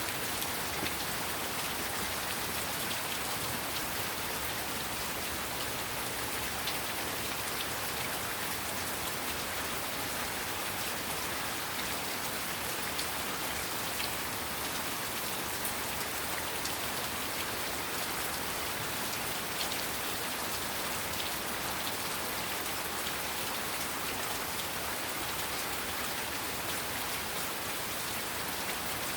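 Heavy rain falling steadily, a dense even hiss with fine scattered drop ticks on hard surfaces.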